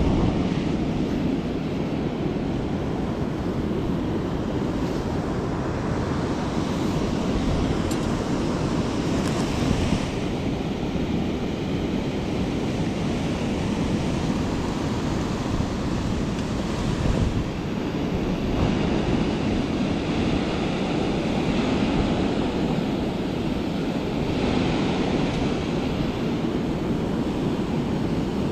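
River water pouring over a low-head dam and churning in the whitewater below, a steady rushing noise.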